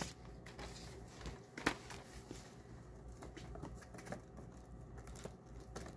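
Faint handling noise of packaging: light rustling and scattered small clicks, with one sharper click about a second and a half in.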